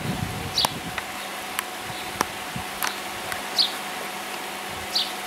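Male house sparrow chirping: a few short, high chirps spaced a second or more apart, with a faint steady hum underneath.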